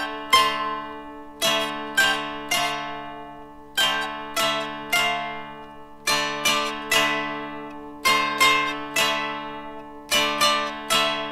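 Solo dulcimer music: plucked and strummed melody notes, each striking sharply and ringing away, over a steady drone from the open strings.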